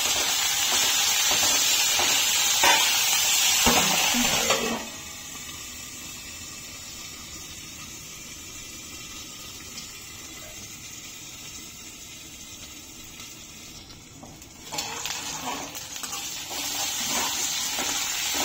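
Hot oil sizzling in a pan as sliced onions with mint, curry leaves and coriander fry, stirred with a few scrapes. About five seconds in the sizzling drops abruptly to a faint hiss, then returns at full strength about fifteen seconds in.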